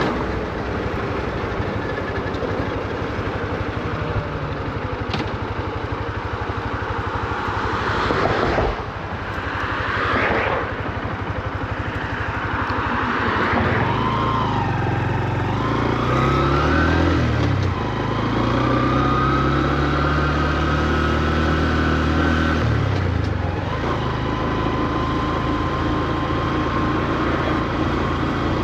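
Honda CB125F's small air-cooled single-cylinder engine, ridden on the road with wind and road noise and a couple of whooshes from passing traffic. About halfway through it pulls away, its pitch rising, dropping at a gear change, rising again, then settling to a steady cruise. Revs stay low, as the new engine is being broken in.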